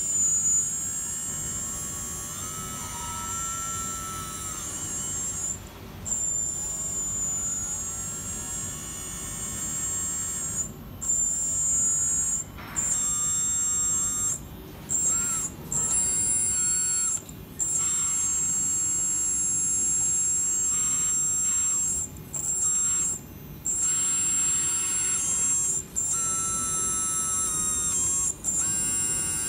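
Electric hydraulic pump of a 1/14.5-scale full-metal RC telehandler, running with a high-pitched whine. It stops and restarts about ten times as the boom, fork carriage and stabilisers are worked.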